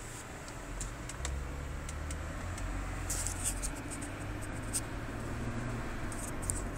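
Low, steady hum of a car heard inside its cabin, with scattered clicks and rustles from the phone being handled. The hum steps up slightly about a second in.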